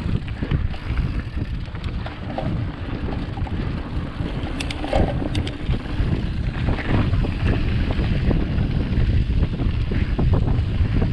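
Wind buffeting the microphone over a rough rumble from a mountain bike rolling down a dirt trail, with scattered clicks and rattles from the bike, a cluster of them about halfway through.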